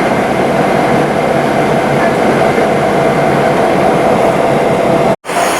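Subway train running: a steady loud rumble with a faint held tone, broken off by a sudden gap near the end.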